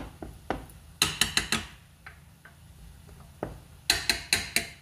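Wooden spatula stirring sticky rice in a metal steamer pot, knocking against the pot in two quick runs of about five sharp clicks, one about a second in and one near the end, with a few scattered taps between.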